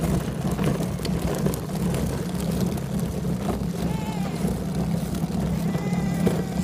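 Hard plastic wheels of a pulled children's wagon rolling over a concrete sidewalk, a steady rumble.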